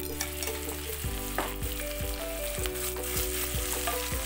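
Oil sizzling in a nonstick kadai with green chillies and spice powder frying in it. From about a second in, a wooden spatula stirs the masala, knocking and scraping against the pan about three times a second.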